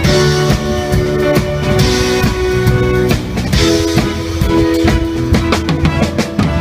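Live band music: an instrumental passage with a steady drum beat and held notes, from a small group of horns, guitar and drums.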